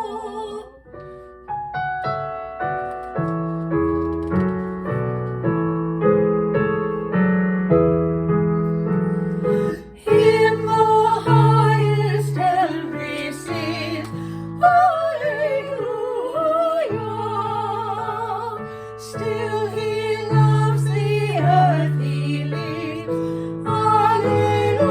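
Piano playing a short interlude alone, then two women singing a church anthem over the piano from about ten seconds in, their voices with a clear vibrato.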